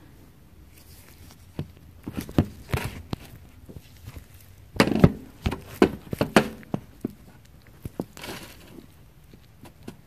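Irregular clunks, knocks and clicks of metal parts bumping as the Ural's spoked rear wheel is worked back into place, loudest in a cluster about halfway through.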